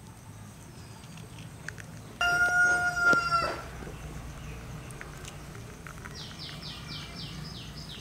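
A rooster crows once about two seconds in, a loud held call lasting about a second and a half. Near the end a small bird gives a quick run of about seven short falling high notes.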